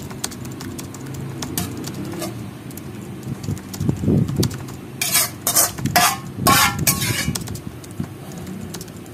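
A metal ladle clinking and scraping against a pan and a ceramic plate as chicken stewed in thick tomato sauce is dished out, with a soft thump about four seconds in and a run of sharp clinks between about five and seven and a half seconds in.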